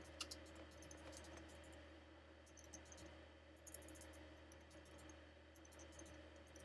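Faint, irregular clicks of keys being typed on a computer keyboard, over a low steady hum.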